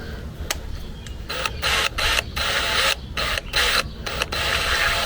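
Power drill run in a series of short whirring bursts, starting about a second in, as the chuck is spun open and shut to change the bit.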